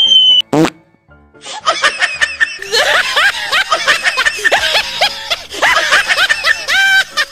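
Comic sound effects over music: a falling whistle tone cuts off, then comes a quick rising sweep. About a second and a half in, high-pitched cartoonish laughter starts and runs on, in short rising-and-falling bursts.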